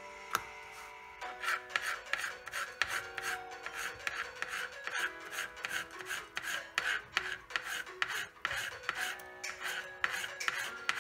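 Small kitchen knife slicing a raw potato into thin matchsticks on a plastic cutting board: quick, even cutting strokes, several a second, starting about a second in.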